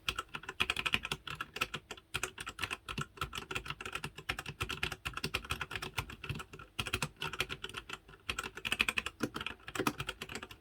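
Fast, continuous typing on a Royal Kludge RK87 mechanical keyboard with Royal Kludge's own brown switches: a dense, irregular stream of key clicks with brief pauses now and then.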